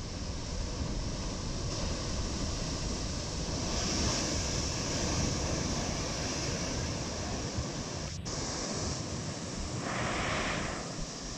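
Ocean surf surging and breaking in a rocky sea chasm, a continuous rush of churning water. It is loudest around four to five seconds in and swells again just after ten, with wind buffeting the microphone.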